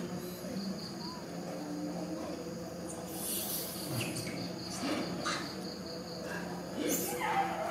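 Insects chirping in a fast, pulsing high trill that comes and goes, with a few brief noisy rustles. Near the end a short falling squeal starts.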